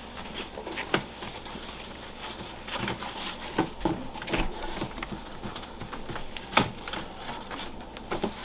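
A dry-erase whiteboard being wiped clean with an eraser: repeated scrubbing strokes across the board's surface, with a few light knocks.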